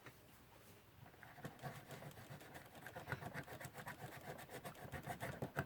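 Faint, quick rubbing strokes of a cloth wipe buffing a brass clock movement plate, starting about a second in, as old grime comes off the brass.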